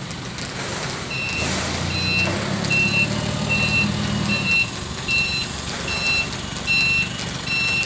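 A forklift reverses away with its backup alarm beeping steadily, about once every 0.8 seconds, over the low running of its engine. The engine is louder for a few seconds, starting about a second and a half in.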